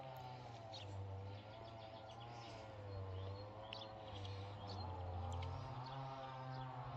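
Soft background music: a slow, wavering sustained melody over a low steady drone, with birds chirping briefly now and then.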